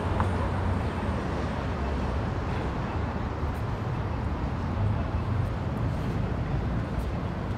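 Steady city street ambience, mostly a low, even rumble of passing traffic.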